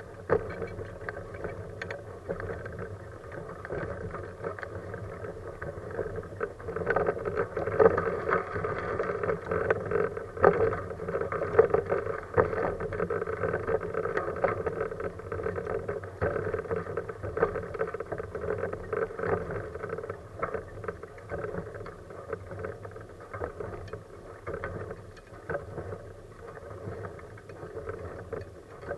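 Kuschall K-series manual wheelchair with a FreeWheel front wheel rolling over rough asphalt: a steady rumble of tyres on the road with a constant rattle of the frame. It grows louder and busier from about a quarter of the way in to just past the middle, then eases off.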